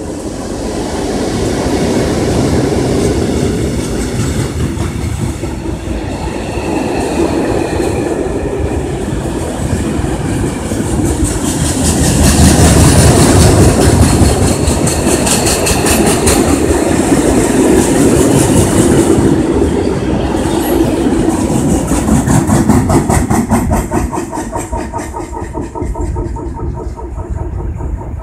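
Two DB Schenker Class 6400 diesel-electric locomotives run past at speed hauling a long steel train. Their covered wagons follow with a steady, rhythmic clickety-clack of wheels over the rail joints, loudest midway and easing off near the end.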